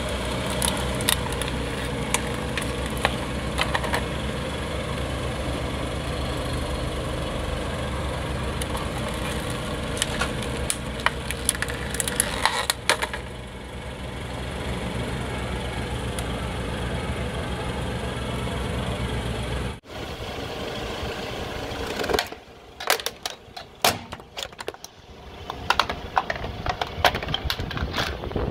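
Car engine idling steadily, with scattered crackles and clicks as its tyre rolls slowly over a plastic toy. After a sudden cut about two-thirds of the way in, a series of sharp plastic cracks and snaps as the tyre crushes a plastic bottle and its lid.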